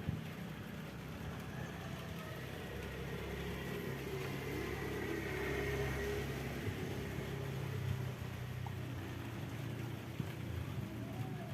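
A motor vehicle's engine running at a distance, growing a little louder toward the middle and then easing off.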